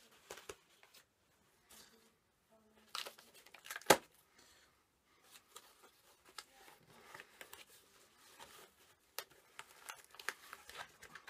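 Plastic shrink-wrap being picked at and torn off a Steelbook case, with scattered crinkles and clicks and one sharp click about four seconds in. The wrapping is hard to open.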